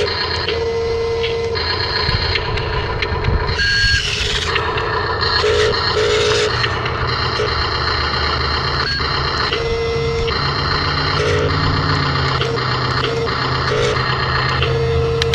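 Toy RC construction machines running, with the steady whine of small electric motors and gearboxes and an electronic beep that switches on and off every second or so.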